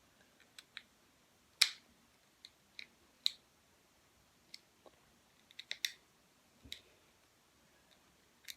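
Small sharp clicks and taps, irregular and spaced out, from a fingerboard truck being fitted to the deck with its tiny screws and tool. The two loudest come about one and a half and three seconds in.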